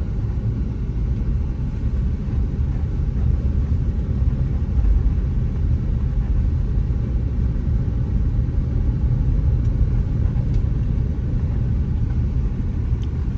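Car driving along, a steady low rumble of road and engine noise heard from inside the moving car.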